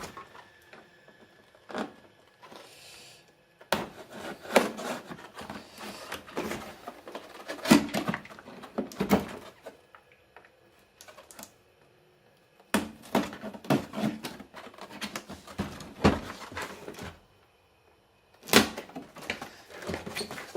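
A cardboard toy box being opened and its packaging handled: irregular clicks, knocks and rustling, with a couple of short quiet pauses.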